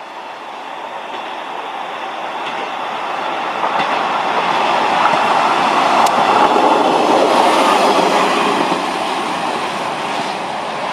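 A train passing on the track, growing louder to a peak about two-thirds of the way through, then easing off before cutting off suddenly.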